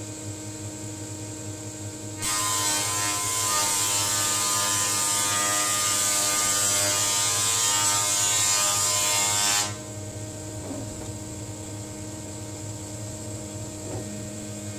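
Jointer of a SICAR Furore 300 combination machine running steadily, with a long twisted board fed over the spinning cutterhead from about two seconds in until near ten seconds, giving a loud planing noise over the motor's hum. After the pass the machine keeps running idle until near the end.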